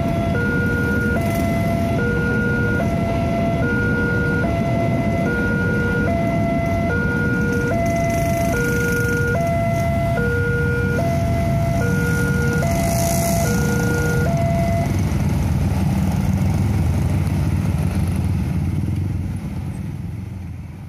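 Indonesian railway level-crossing alarm sounding a two-tone electronic warning, switching pitch under once a second, then stopping about 15 seconds in. Under it runs a steady rumble of traffic engines, and everything fades out near the end.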